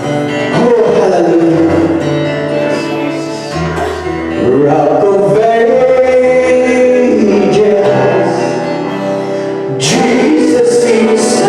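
A man singing a song over instrumental backing music, with held bass notes under the melody.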